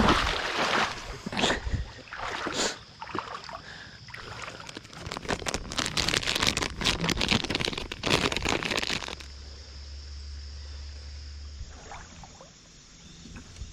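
Water splashing and sloshing in irregular bursts, busiest toward the middle, then giving way about nine seconds in to a steady low hum that lasts about three seconds.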